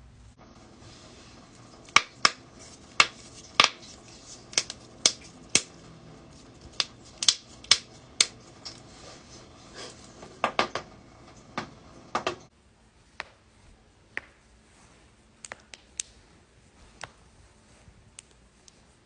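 Human joints cracking: a series of sharp, irregular pops, some in quick pairs, over a low background hum. About twelve seconds in the hum drops away and the pops that follow are fainter and sparser.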